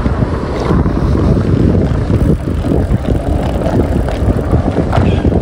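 Wind buffeting the microphone of a camera being ridden along a footpath: a loud, gusty low rumble with no clear pitch.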